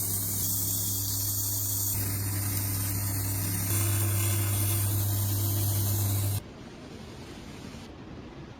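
Steady hissing spray over a low steady hum, changing level at a couple of edits and cutting off abruptly about six seconds in, leaving a much quieter hiss.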